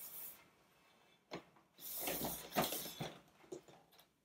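Hands handling a cardboard advent calendar: scattered rustles and light taps, the longest rustle about two seconds in.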